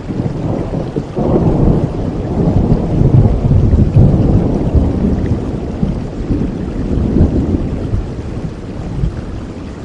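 Steady rain with a long, low roll of thunder that swells about a second in and slowly fades away.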